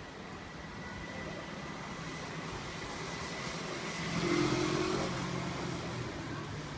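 Keirin pace motorcycle's engine running as it leads the field of track cyclists past, growing louder to a peak about four and a half seconds in, then fading.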